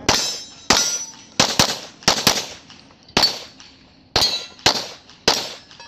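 About ten pistol shots fired in an uneven string, some in quick pairs, each a sharp crack with a brief metallic ring as steel targets are struck.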